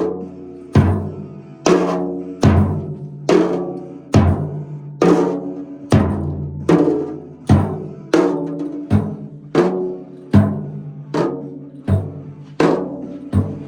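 Music with a drum struck in a steady beat, a little more than once a second, each stroke ringing out with a pitched tone.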